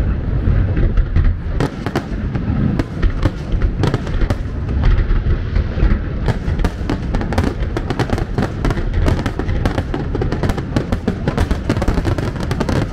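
Aerial fireworks display: shells bursting in quick succession, with deep booms and many sharp bangs and crackles a second.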